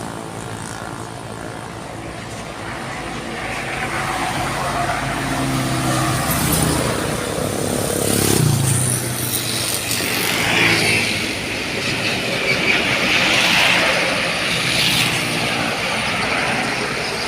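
Road traffic passing close by: a vehicle's engine drones past, its pitch dropping sharply about eight seconds in as it goes by, followed by a rushing noise.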